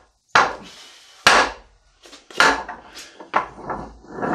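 Homemade wooden log dolly on casters knocking against the concrete floor as it is turned and set down to be rolled: four sharp wooden knocks about a second apart.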